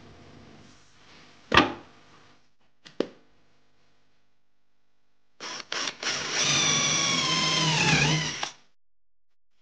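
Electric drill boring a hole into a wooden strip: after a few short trigger blips it runs steadily for about two seconds, its pitch dropping near the end as the bit bites into the wood, then stops. Before that, a sharp knock about a second and a half in and a smaller one at three seconds.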